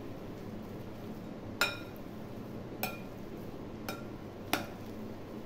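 Metal potato masher clinking against a glass mixing bowl while mashing boiled potatoes: four sharp clinks, each ringing briefly.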